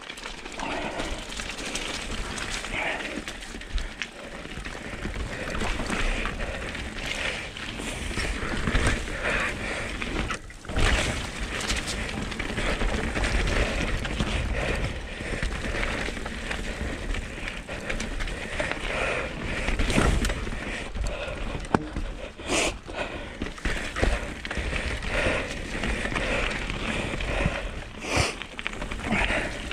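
Mountain bike ridden down a rough dirt singletrack: a continuous rumble of tyres over dirt and roots, with a few sharp knocks, two of them standing out about two-thirds of the way through and near the end.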